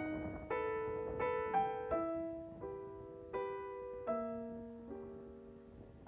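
Slow, gentle background piano music: notes and chords struck roughly every half second to second, each left to ring and fade.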